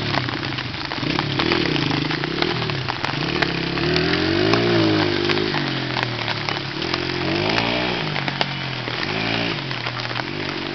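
Dirt bike engine revving up and down several times as the bike rides off through mud, over the steady hiss of rain.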